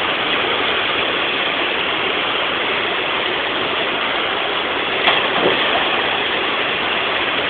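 Waterfall's steady rushing roar of falling water, with a faint short sound about five seconds in.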